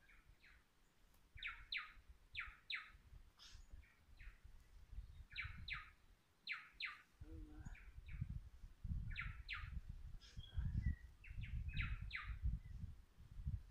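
A small bird chirping over and over: short sharp notes, mostly in quick pairs, about once a second. A low, gusty rumble comes in about halfway through and grows louder.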